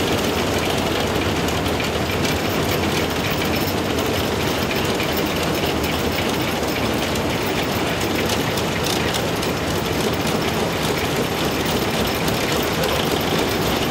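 ČSD class 423.0 steam tank locomotive under way, heard from inside its cab: a steady rush and mechanical clatter of the running gear and rails.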